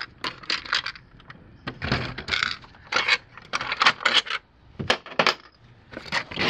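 Metal screws clinking and rattling as they are handled and set down on a table, with plastic clicks from the housing of a Hayward Navigator suction pool cleaner being unscrewed and opened: a run of short, separate clinks.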